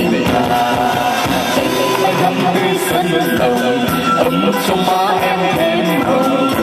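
A man and a woman singing a duet with electronic keyboard accompaniment, amplified through microphones.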